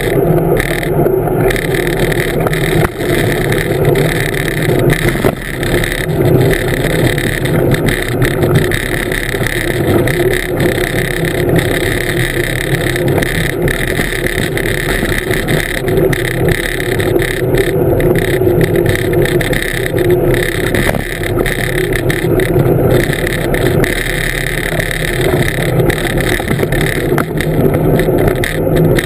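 Steady rush of wind and rolling noise from a blokart land yacht under sail.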